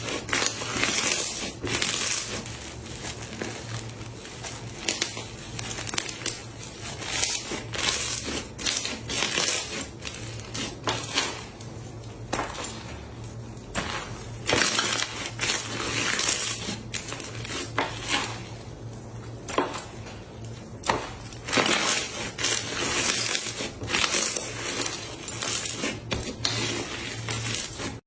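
Slime squished and pressed by hand, giving dense, irregular crackling pops and crunches. A faint steady low hum runs underneath.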